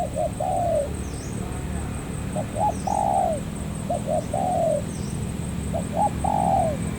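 Spotted dove cooing, four times: each phrase is two or three short notes followed by a longer note that falls in pitch.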